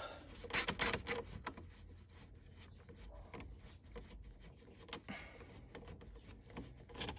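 Clicks, faint ticking and scraping of a hand bit driver turning a bolt out of the plastic slam panel under a car's bonnet. A few sharp clicks come in the first second or so, then quieter scraping as the bolt is unscrewed and lifted out.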